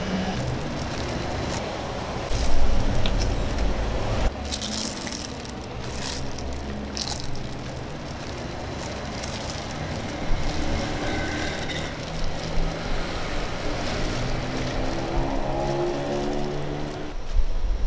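Road traffic noise: vehicles running and passing, with a low rumble and a few knocks early on. Near the end an engine rises in pitch, as when accelerating.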